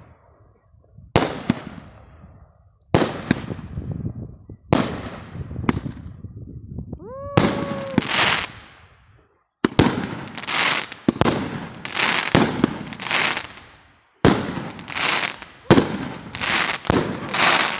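Consumer aerial fireworks shells launching and bursting, a run of sharp bangs every second or so with crackling after them. A short whistle sounds about seven seconds in.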